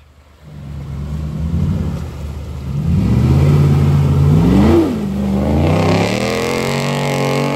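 Pickup truck engine revving hard under load in a mud pit. The pitch climbs to a peak about five seconds in, dips, then is held high. Mud and water splash in the last couple of seconds.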